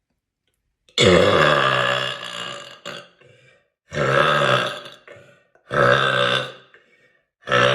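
A woman belching loudly, a string of long drawn-out burps: the first and longest about a second in, then two more about two seconds apart, and a fourth starting near the end.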